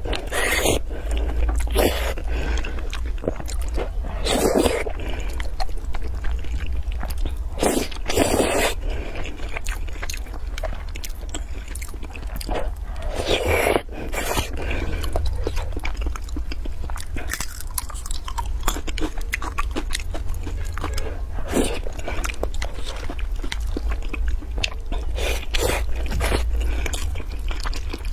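Close-miked slurping and wet chewing of glass noodles in sauce, with several louder slurps and many small mouth clicks over a low steady hum.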